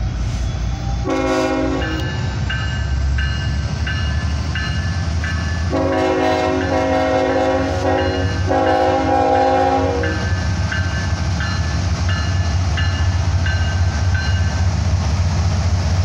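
Norfolk Southern GE ET44AC locomotive's air horn: a short blast about a second in, then two long blasts from about six to ten seconds, over the low rumble of the locomotives passing. A bell dings steadily, about once every 0.7 seconds, through most of it.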